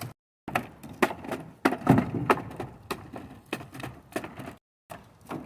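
Wooden dock boards cracking and splintering, with many sharp, irregular knocks of wood on wood, as the old dock is broken apart.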